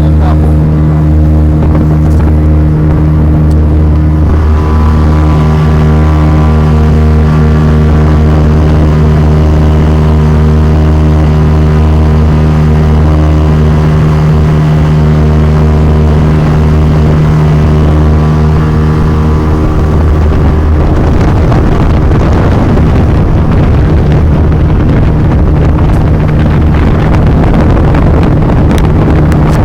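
Motorboat engine running at a steady pitch. About two-thirds of the way through, a loud rushing of wind on the microphone, or of water, comes up and largely covers the engine.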